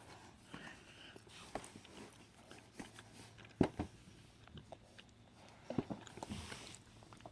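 Chewing and biting food up close: soft wet mouth clicks and small crunches at irregular intervals, with the sharpest click about three and a half seconds in and a cluster near the end.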